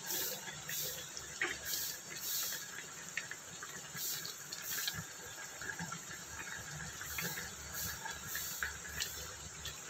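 A pot of fish and eggplant in coconut milk boiling on the stove: a steady hiss with scattered small bubbling pops.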